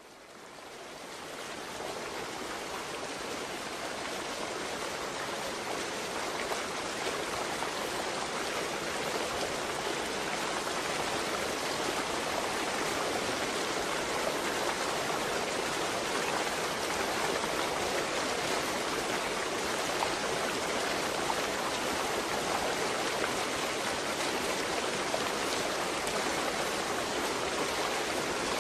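Shallow rocky stream rushing over stones: a steady, even wash of water that fades in over the first couple of seconds.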